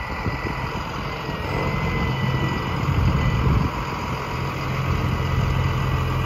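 Cummins 5.9-litre turbo diesel engine of a Sterling L7500 truck running at idle, a steady low hum that grows louder and steadier about four seconds in.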